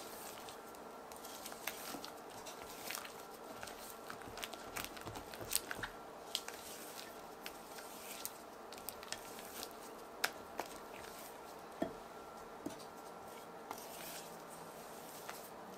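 Scattered small clicks and soft taps of food and utensils being handled during muffin preparation, over a faint steady hum.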